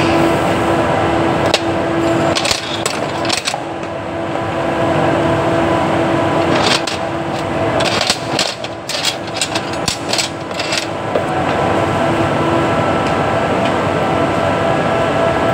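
Steady mechanical hum of workshop machinery, with bursts of light metallic clinks and clicks from hand tools working on the car's front end, about two seconds in and again from about seven to eleven seconds.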